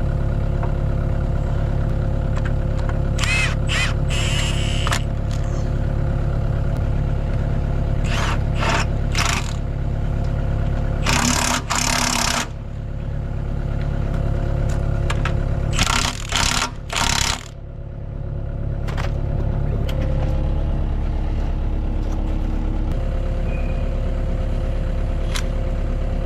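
Kubota KX161-3 excavator's diesel engine running steadily, with several short bursts of metal clatter and scraping over it.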